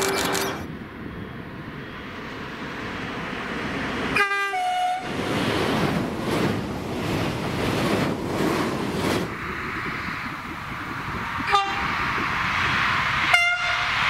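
French trains sounding their horns, cut one after another. A TGV's horn ends just after the start, a short blast comes about four seconds in, and two more short blasts come near the end. In between is the rush of a train passing at speed.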